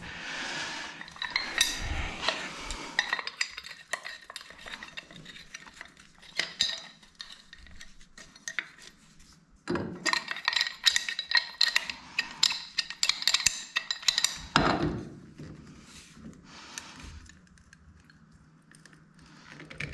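Metal hand tools clinking and rattling as they are handled, in two spells of quick clinks, the second about ten seconds in, followed by a dull knock.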